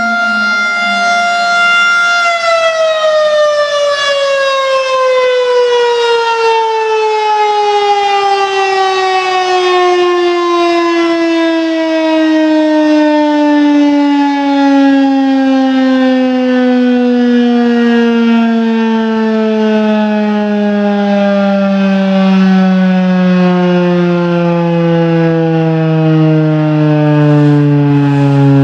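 Federal Signal 2001-130 electromechanical warning siren holding a steady high tone, then, about two seconds in, beginning a long, slow fall in pitch as it winds down at the end of its signal.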